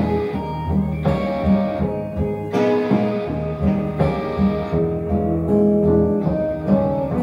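Recorded song played over a pair of Xavian Giulietta floor-standing loudspeakers and heard in the room: an instrumental passage without singing, sustained higher notes over a moving bass line.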